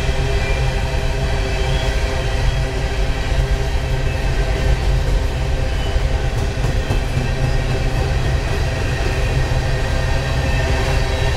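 Freight train of covered hopper cars rolling past, a steady loud rumble of wheels on rail with a constant hum of steady tones over it.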